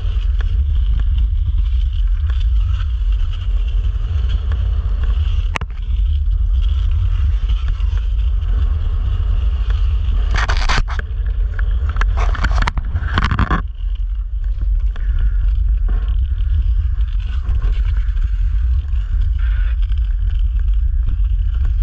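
Wind buffeting the microphone with a steady hiss of a rider gliding over lake ice under a hand-held wing, broken by a sharp click a few seconds in and a few louder rasping bursts in the middle.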